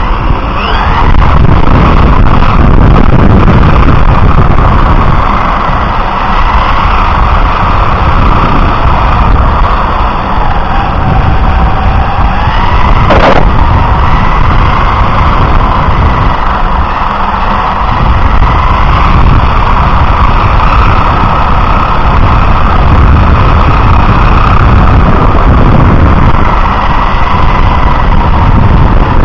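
Onboard an electric radio-controlled car racing on asphalt: loud rumbling from road vibration and wind on the camera microphone, under a motor and gear whine that rises and falls in pitch with speed. One sharp knock a little before halfway.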